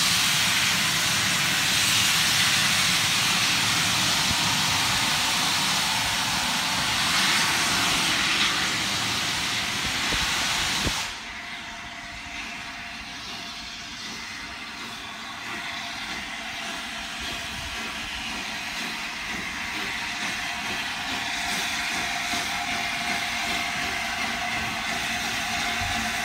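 Peppercorn A1 Pacific steam locomotive 60163 Tornado letting off steam with a loud, steady hiss that cuts off suddenly about eleven seconds in. Quieter locomotive sounds follow, slowly growing louder as the engine draws nearer.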